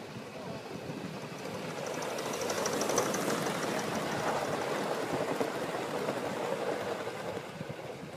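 Gauge 1 model 4-4-0 locomotive and coach running past on the rails. The wheel and track noise grows louder over the first three seconds, with a fast run of clicks at its loudest, then fades slowly as the train draws away.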